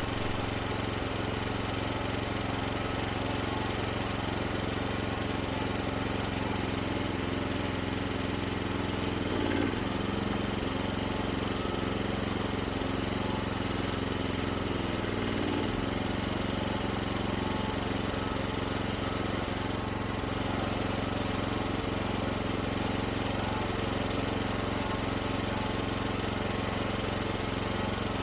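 Small engine of a mini excavator without a counterweight running steadily. Its note wavers briefly twice, about nine and fifteen seconds in, while the boom lifts a heavy log by a chain through a load cell.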